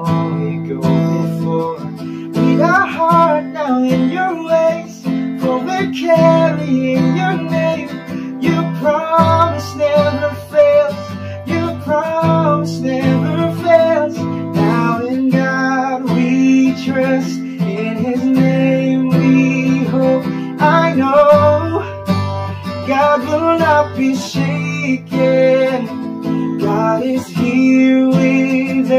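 Worship-song music: a strummed acoustic guitar over sustained low chords, with a curving melody line above it.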